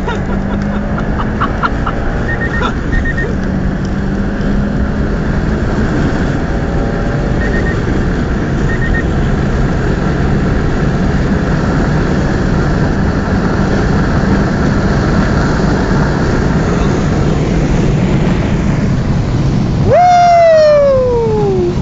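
Inside the cabin of a Subaru Impreza STI with its turbocharged flat-four pulling at high speed: a steady engine drone over road and wind noise, with a few short beeps in the first nine seconds. Near the end a man lets out a loud yell that falls in pitch over about two seconds.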